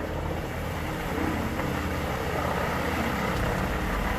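Vermeer WC2500XL wood chipper running steadily, a continuous machine noise with no distinct chipping impacts.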